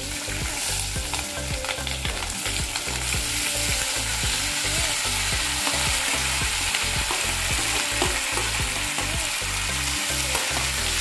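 Cut onions, tomatoes, garlic and green chillies sizzling steadily in hot oil in a pan, with a spoon clicking and scraping as they are tipped in and stirred.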